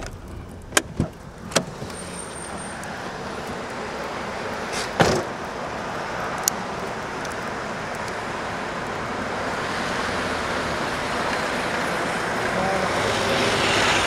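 A car door opened with a few sharp clicks and shut with a thump about five seconds in, then steady street traffic noise growing louder as the camera moves out to a stopped car.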